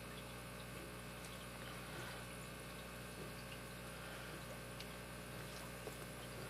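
Faint steady electrical hum with a few soft, scattered clicks.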